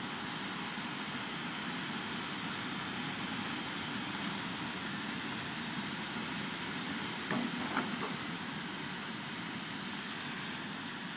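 Tank wagons of a freight train rolling slowly past, a steady rumble of wheels on the rails, with two short sharp knocks about half a second apart a little past the middle.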